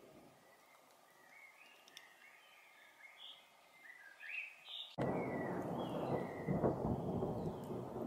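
Songbirds chirping with short high notes for the first few seconds, then about five seconds in a loud rumble of thunder starts suddenly and keeps rolling.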